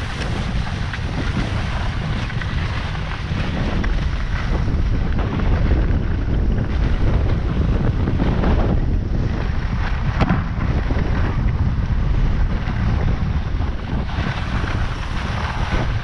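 Wind rushing over the microphone of a skier's camera during a fast downhill run, with the hiss of skis sliding over packed snow. It is loud throughout and a little stronger in the middle of the run.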